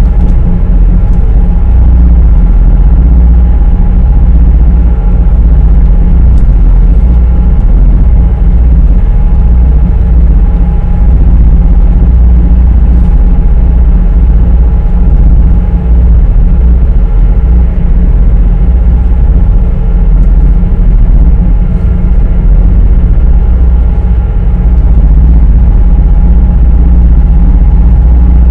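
Steady, loud low rumble of a high-speed passenger ferry's engines heard inside the cabin, with a few faint steady humming tones over it.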